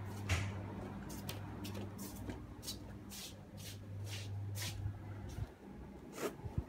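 Shuffling, rustling handling noise: a run of short soft swishes, about two a second, over a steady low hum that drops away for about a second near the end.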